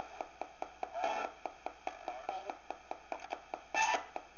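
Direct Linc ghost box radio sweeping through stations: a steady clicking about five times a second as it jumps from channel to channel, with brief snatches of radio sound between the clicks and a louder short burst near the end.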